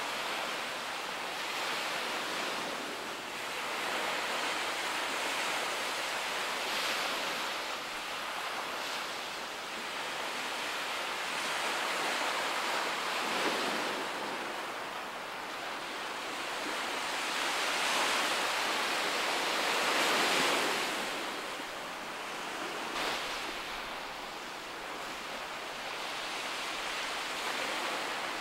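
Sea waves washing on the shore, a steady rush that swells and fades every few seconds.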